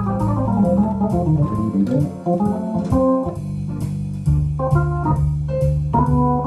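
Hammond-style organ voice on an electronic keyboard playing a jazz-blues melody over sustained bass notes, with a steady beat of high ticks behind it.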